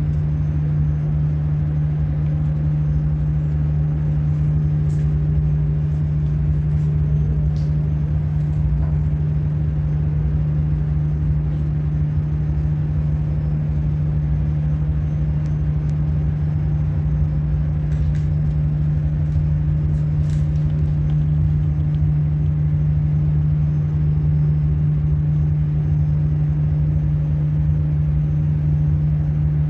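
A loud, steady low hum of running machinery, one unchanging pitch with fainter higher overtones, with a few faint ticks.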